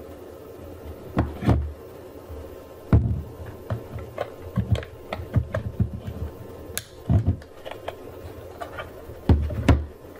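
Handling noise as a plastic Wi-Fi access point is turned over, an Ethernet cable is plugged into its port, and the unit is set back down on a wooden table: scattered clicks and knocks with several louder thumps.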